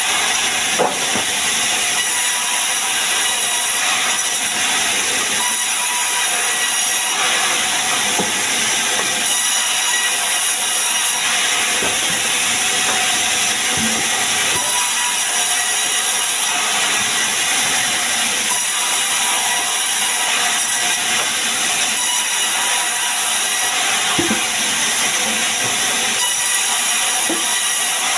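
Sawmill band saw running and cutting lengthwise through a sengon log, a steady high-pitched noise of the blade in the wood, with a few light knocks from the log being handled.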